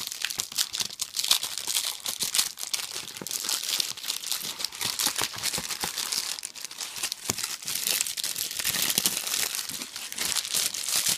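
Clear plastic wrapping being pulled and torn open by hand: a dense, continuous crackle of crinkling plastic with sharper snaps, lasting throughout.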